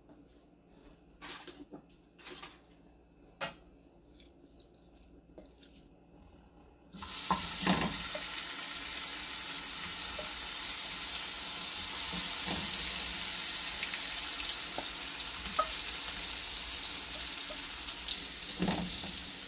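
A few faint clicks, then about seven seconds in a sudden loud, steady sizzle starts as raw shrimp hit hot oil in a nonstick frying pan. It keeps up while more shrimp are added and turned with a wooden spatula, with an occasional knock of the spatula or plate.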